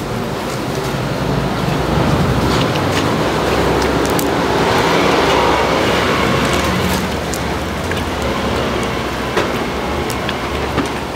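A motor vehicle passing close by: a low engine rumble and road noise swell for a few seconds and then fade, with a few light clicks over it.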